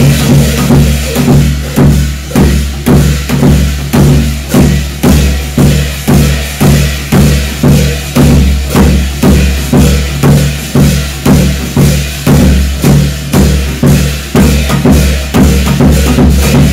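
Percussion-driven Korean shamanic gut ritual music: drums struck in a steady, even beat of about two strokes a second over a sustained low drone.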